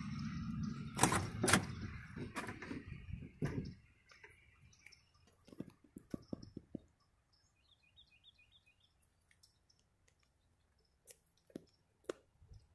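A few sharp clicks and knocks, the loudest two about a second in and a second and a half in, over a steady low rumble that stops about four seconds in. Later, faint short bird chirps come in a quick run, with a few more soft clicks near the end.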